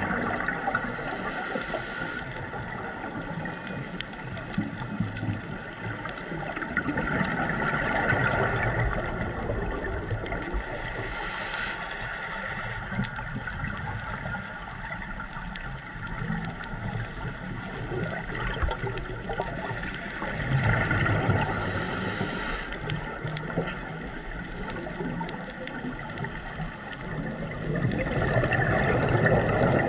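Scuba diver breathing through a regulator underwater, in a slow cycle of breaths: a brief hiss on each inhale and a gurgling rush of exhaust bubbles on each exhale.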